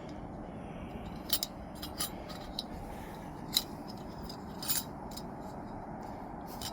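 Metal wind guard for a camping stove being handled, giving several sharp metallic clinks spaced irregularly, over a steady low rushing noise.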